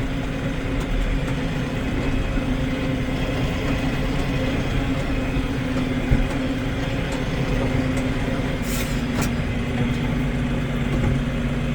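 Farm tractor engine running steadily at an even, low drone while the tractor drives across a bumpy hay pasture.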